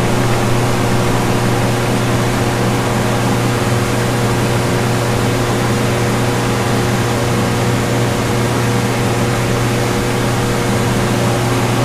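Steady hum of running shop machinery, with a constant low drone and an even whir that does not change.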